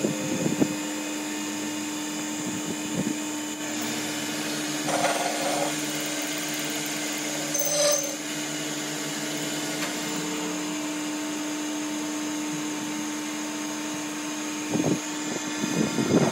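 Metal lathe running with a steady hum as its spindle turns a long steel shaft, with a few brief knocks and clatters, the loudest near the end.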